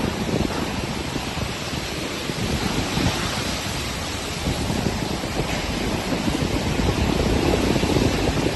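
Monsoon wind and heavy rain: a steady rushing noise, with wind buffeting the microphone and growing a little stronger near the end.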